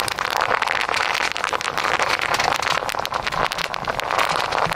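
Bubble wrap popping under a slowly rolling truck tire: a dense, steady crackle of many small pops.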